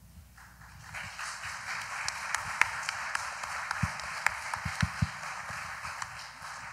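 Audience applauding. It builds up within the first second, holds steady with a few sharp individual claps standing out, and fades near the end.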